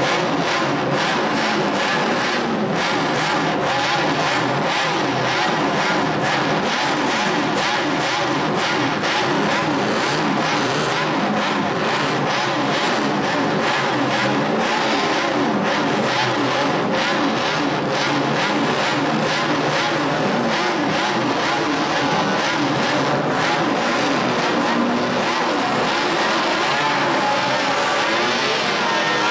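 Several racing engines running continuously at high revs, their overlapping pitches rising and falling.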